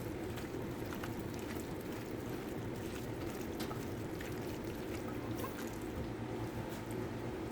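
Chicken cooking in a pan: a steady watery sizzle and bubble, with a few faint clicks.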